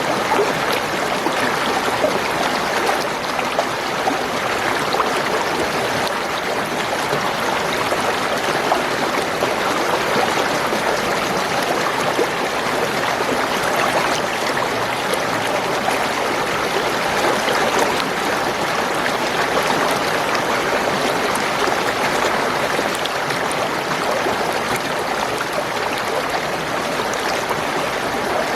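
Spring water gurgling and running steadily.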